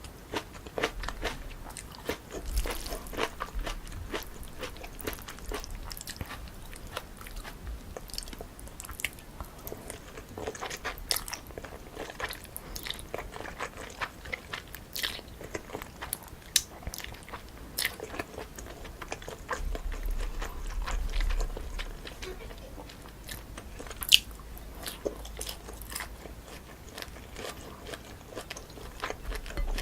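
Close-miked eating sounds: biting and chewing cold spicy chewy noodles mixed with crunchy toppings such as cucumber and apple, a steady run of small wet clicks and crunches. One sharp click about 24 seconds in is the loudest.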